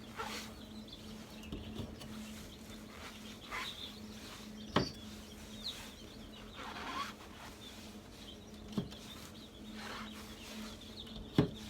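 Packaging being handled while hatching eggs are taken from foam shippers and bubble wrap: soft rustling and a few sharp clicks, over a steady low hum.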